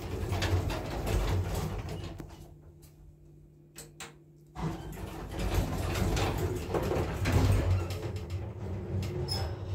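Otis Europa 2000 lift's automatic sliding doors running. Near the middle, a quiet spell with a faint steady hum and two sharp clicks as the ground-floor button is pressed. Then the doors start closing with a sudden loud rush.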